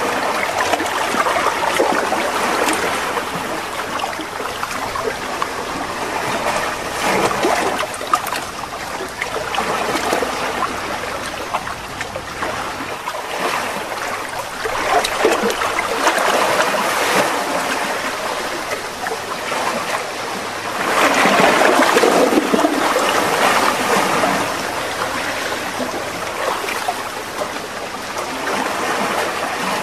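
Waves washing on a sandy beach, a steady wash that swells and ebbs every few seconds, loudest about two-thirds of the way through.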